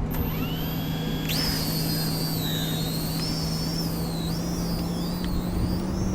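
Small consumer drone's electric motors and propellers spinning up and flying: a high whine that climbs sharply about a second in, then wavers up and down as the throttle changes. A steady low hum runs underneath.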